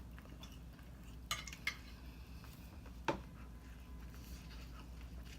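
Eating utensil clinking against a dish: three sharp clinks, two close together just over a second in and one about three seconds in that rings briefly.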